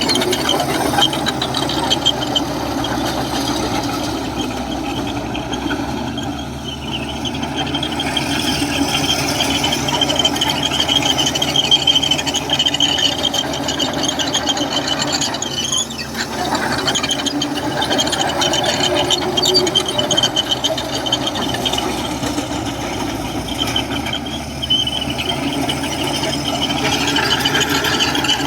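Komatsu crawler bulldozer working: its diesel engine running steadily with a continuous, wavering high-pitched squeal from the steel tracks.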